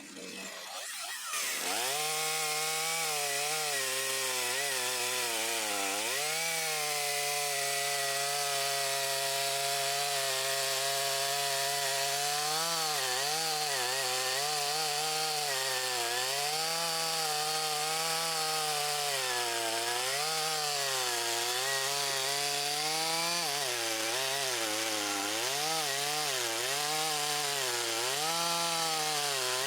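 Makita DCS5121 50 cc two-stroke gasoline chainsaw revving up sharply about a second in, then running at full throttle. Its engine note sags and recovers repeatedly, as it does when the chain bites into wood.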